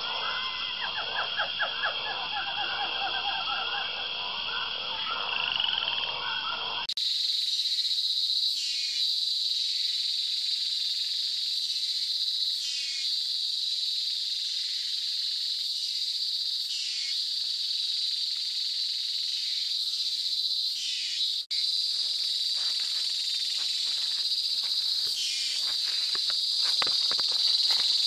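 A chorus of frogs calling in rapid pulsing trills over a high insect drone. About seven seconds in it switches abruptly to a steady, high-pitched insect chorus with occasional chirps, a brief dropout, and scattered clicks near the end.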